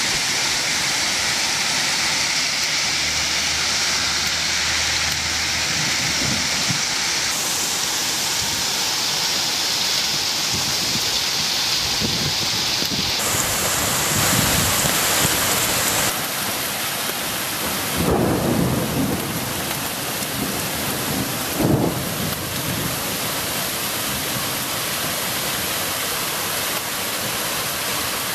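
Heavy thunderstorm downpour: a loud, steady rush of rain pouring onto the street and garden, with low rumbles twice near the end.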